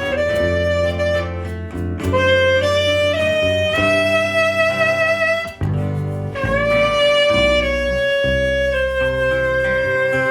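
Saxophone playing a melody of long held notes over a band's accompaniment with a steady bass line, with a short break between phrases about halfway through.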